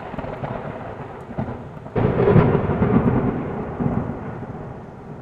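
Thunder with rain: a rumble dying away, then a second clap about two seconds in that rolls and fades.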